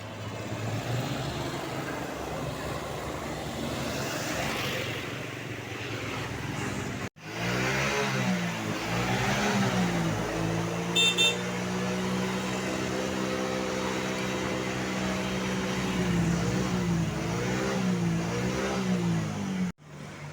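Traffic noise for about seven seconds, then, after a cut, a bus's Basuri telolet horn plays its warbling multi-tone tune, holding a steady chord in the middle before warbling again, and cuts off near the end.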